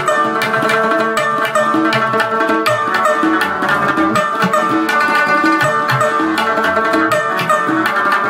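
Afghan rubab and tabla playing together: a stream of plucked rubab notes over a steady, busy tabla rhythm.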